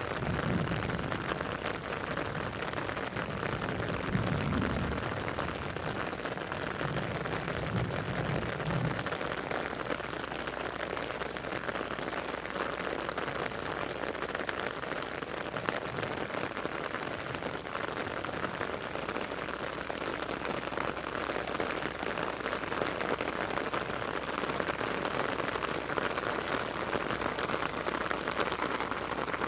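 Steady rain falling, an even continuous hiss, with some low rumbling during the first third.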